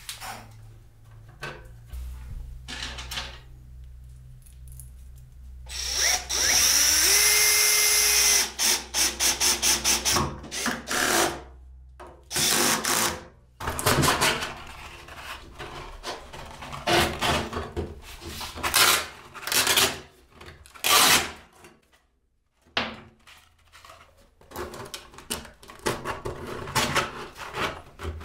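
A cordless drill-driver runs for a couple of seconds, then in quick short trigger bursts, driving screws that fix a hacksaw blade along the edge of a workbench. After that, abrasive sanding cloth is torn off a roll against the blade's edge in a series of short rasping rips.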